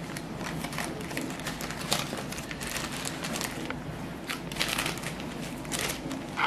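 Baking paper crinkling with irregular crackles as a thin sheet of chocolate sponge is rolled up in it.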